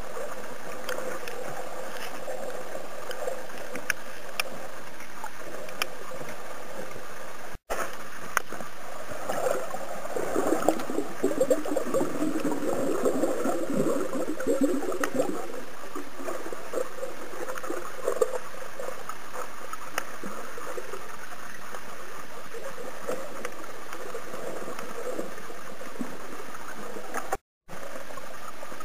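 Muffled underwater sound heard through a submerged camera: a steady rush of water, with a stretch of gurgling and crackling in the middle. The sound cuts out twice briefly, once about a quarter of the way in and once near the end.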